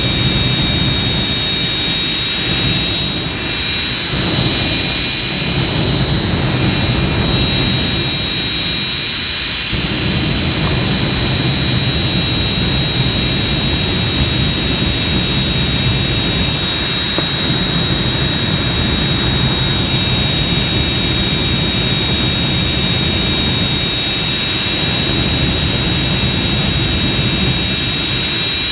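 Jet engine running steadily at power: a loud, continuous rush of exhaust with a high, steady whine over it.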